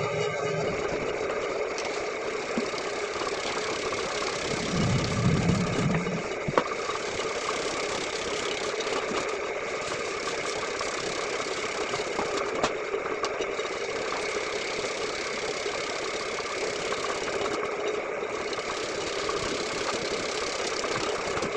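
Motor-driven vegetable slicing machine running steadily while shredding purple sweet potatoes, with a deeper rumble about five seconds in and a sharp click a second later.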